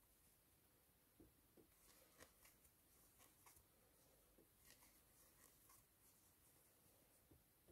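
Near silence, with faint scattered ticks and rustles from a crochet hook working plush yarn.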